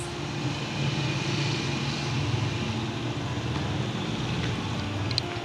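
A steady low mechanical drone that holds at an even level throughout.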